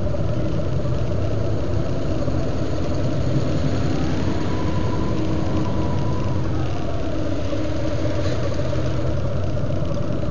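Motorcycle engines and a tour bus idling and creeping along in slow traffic: a steady, even low rumble.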